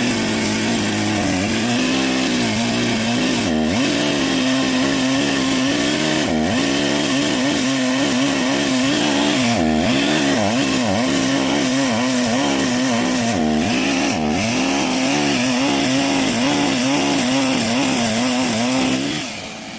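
Two-stroke chainsaw running at high throttle as it cuts along a wooden plank to plane it flat, its engine note wavering slightly under the load. About a second before the end it drops back.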